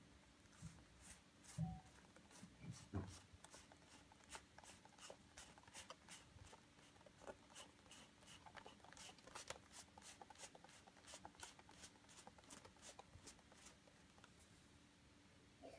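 Faint, irregular paper clicks and rustle from handling a pop-up book as its movable sleigh piece is slid up and down, with two soft thumps in the first few seconds.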